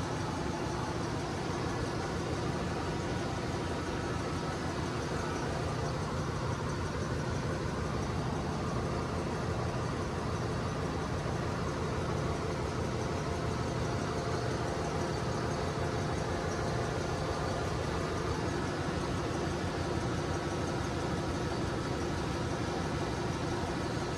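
Steady drone of running diesel machinery in a ship's engine room, an even engine hum with no breaks or knocks.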